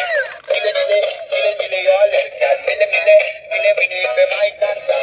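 Tinny electronic tune with a synthesized singing voice playing from a battery-operated musical toy's built-in speaker. It starts suddenly as the toy is switched on.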